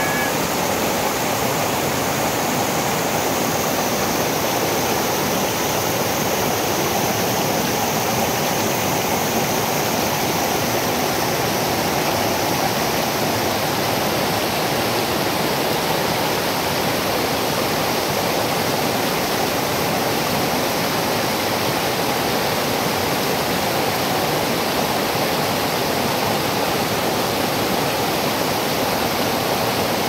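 Waterfall cascading over boulders in a rocky mountain stream: a steady rushing of white water.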